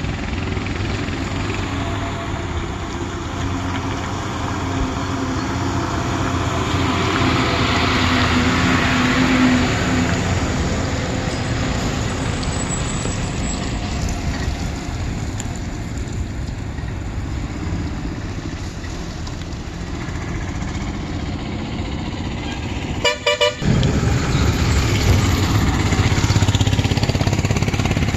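Diesel engines of heavy trucks and a coach running as they pass along the road, with the sound of one swelling and fading around a third of the way through. A short horn toot sounds late on.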